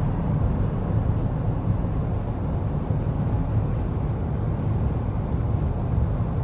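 Steady road and wind noise inside a car's cabin at about 75 mph with the windows up: an even low rumble of tyres and engine with a hiss of wind over it.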